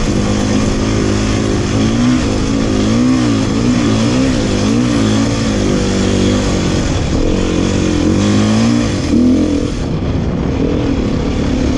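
Dirt-bike engine heard from on board while riding a trail, its revs rising and falling quickly and unevenly with the throttle over rough ground, under a steady rush of wind and road noise.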